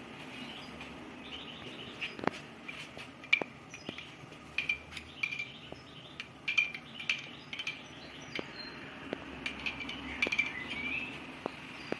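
A metal spoon clinking now and then against a small glass bowl while stirring thinned tomato paste, with short high bird chirps in the background.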